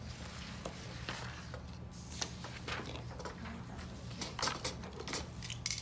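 Small plastic connecting cubes clicking and clattering as they are picked from a tub and stacked on a table, in short irregular knocks that come thicker in the second half. A steady low hum sits underneath.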